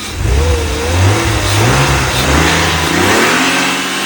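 BMW M50B25 2.5-litre straight-six revved once, the engine note climbing, holding for a couple of seconds, then dropping back toward idle. It runs nearly warm on freshly replaced hydraulic lifters, and the owner hears no lifter tapping at the moment.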